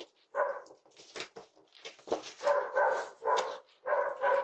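A dog barking repeatedly: several short barks with brief pauses between them.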